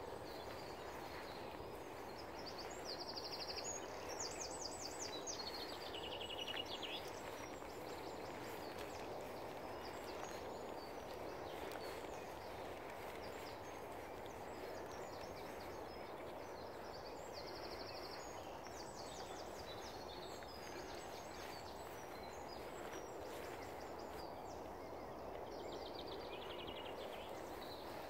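Small songbirds singing high, rapid trilling phrases a few times over a steady background hum.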